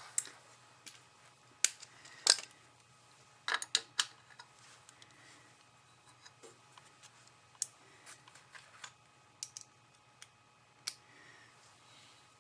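Irregular clicks and clinks of small metal hand tools and nuts being handled and set down, with a quick cluster of louder knocks a few seconds in.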